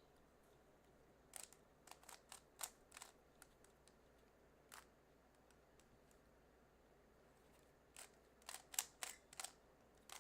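Plastic Rubik's cube being twisted by hand, its layers clicking as they turn, in two quick flurries of turns with a single click between them.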